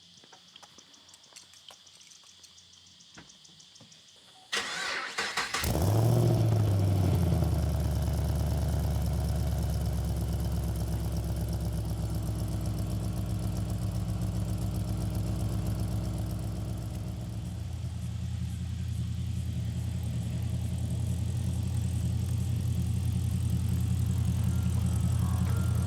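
An engine cranks briefly about four and a half seconds in, catches, and settles into a steady idle. Before it starts, a faint high insect-like chirring is heard.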